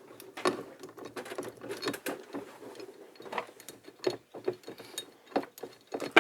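Rummaging through a box of metal tools, with irregular clinks, clicks and rattles.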